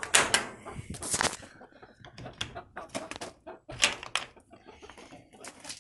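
Wooden chicken-run door with wire mesh being unlatched and opened: a string of irregular knocks and rattles of wood and metal, with hens clucking.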